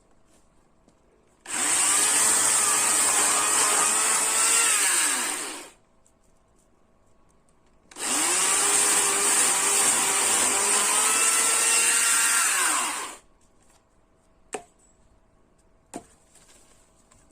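Chainsaw running in two bursts of about four and five seconds, quiet in between, its pitch sagging as each burst ends. Two short knocks follow near the end.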